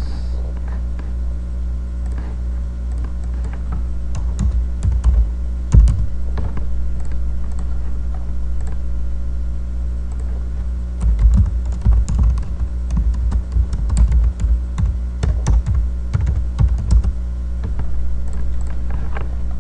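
Typing on a computer keyboard in two spells, one about four to seven seconds in and a longer one from about eleven to seventeen seconds in, over a steady low hum.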